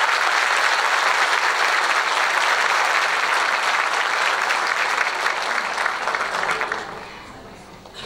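Concert audience applauding steadily, the clapping thinning out and dying away about seven seconds in.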